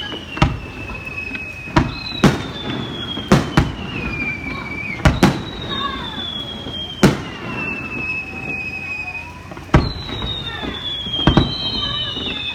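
Aerial fireworks: sharp bangs of shells bursting, about a dozen of them at uneven intervals, some in quick pairs. Between them come high whistles that slide slowly downward in pitch, each lasting a couple of seconds.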